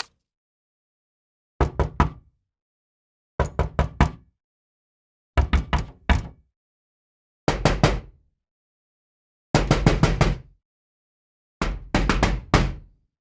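Knocking sound effect: six short sets of three to five quick knocks, about two seconds apart, with silence between the sets.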